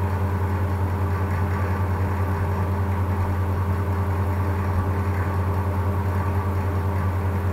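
A steady low hum with a few even higher overtones that does not change at all.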